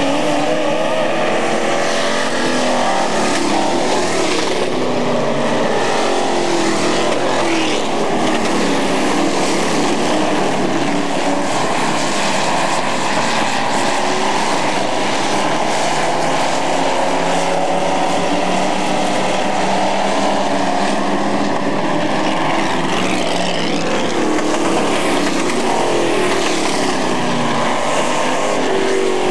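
Dirt-track super trucks racing: several engines running hard together, rising and falling in pitch as the trucks speed up, lift and pass.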